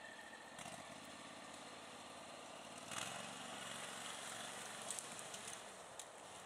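Max IV 6x6 amphibious ATV's engine running faintly as it drives off through mud, with a low hum under a steady hiss. The engine grows louder about three seconds in.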